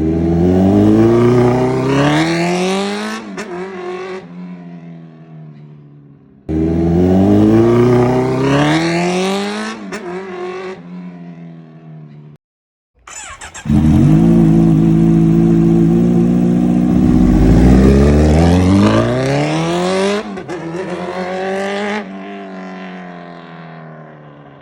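2017 Kawasaki Z900's 948 cc inline-four engine, through an SC-Project aftermarket exhaust, revved up twice in rising sweeps that each drop back and die away. Then it is held at high revs for several seconds, dipping and climbing again, with abrupt cuts between passages.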